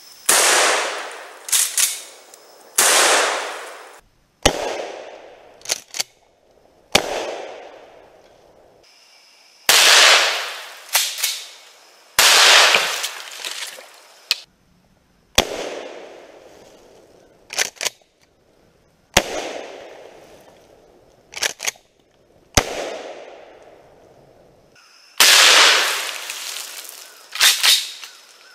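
A Mossberg 500A 12-gauge pump-action shotgun fired about nine times, every two to three seconds. Each blast echoes and dies away. Between many of the shots come short double clacks as the pump action is worked.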